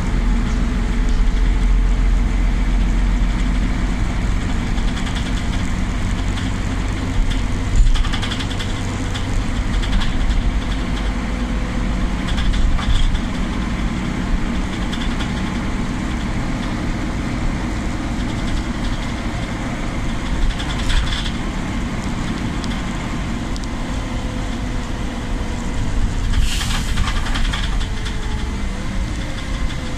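Solaris Urbino 12 city bus heard from inside the passenger cabin: its engine running with a steady low rumble and a faint whine. A few short knocks come through, and there is a short hiss near the end.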